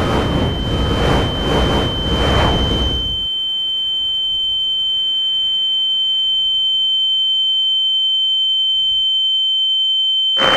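A steady high-pitched tone, over a rushing noise for the first three seconds and then on its own, cut off suddenly at the very end.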